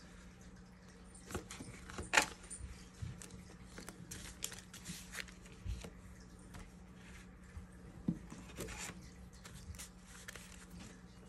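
Paper banknotes and clear plastic binder envelopes being handled: scattered rustles, crinkles and soft taps, the loudest a short rustle about two seconds in.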